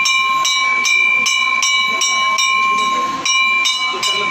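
Temple bells ringing rhythmically during a puja, about three to four strikes a second over a steady ringing tone, with faint voices underneath.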